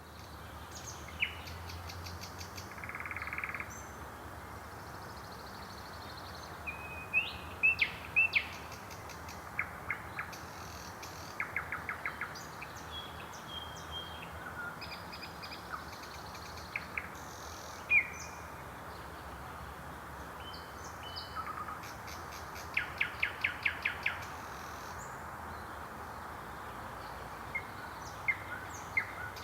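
Thrush nightingale singing at night: separate phrases of fast clicking rattles and clear whistled notes with short pauses between, over a steady background hiss.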